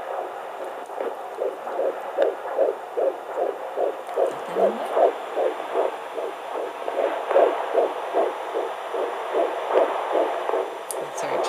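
A fetal heartbeat at 14 weeks of pregnancy, picked up through a handheld fetal Doppler as fast, even whooshing pulses, a little under three a second.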